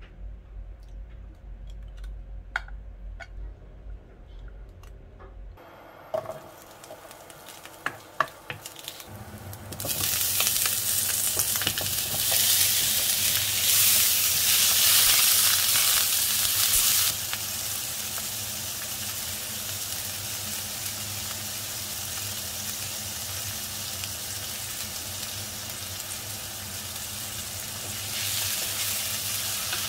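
After a few light clicks, white sundae (Korean sausage) slices frying in oil in a pan start sizzling about a third of the way in and are stirred with a wooden spoon. The sizzle is loudest for several seconds, then settles into a steady sizzle.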